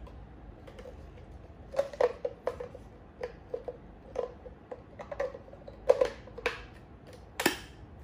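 Plastic clicks and taps of a Hoover mattress vacuum's dust container and filter being handled and fitted together, a scattered string of short knocks with the sharpest near the end; the vacuum motor is not running.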